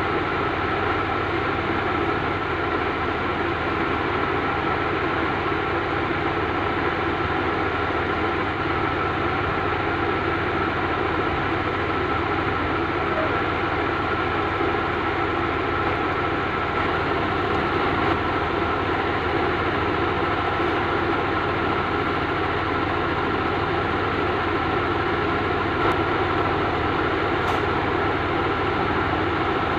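A steady mechanical drone that holds the same level throughout, with a constant thin hum tone running through it.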